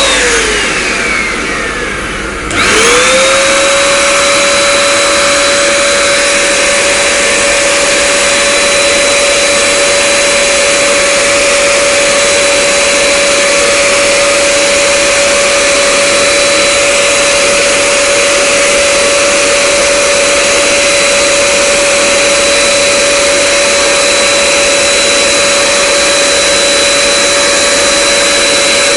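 Handheld portable vacuum cleaner: its motor winds down in pitch over the first second or two, spins back up about two and a half seconds in, then runs steadily with a high whine and airflow hiss.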